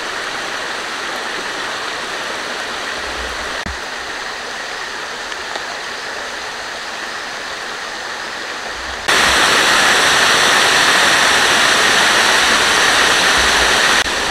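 Shallow rocky forest stream running over stones, a steady rush of water. About nine seconds in it turns suddenly louder and brighter.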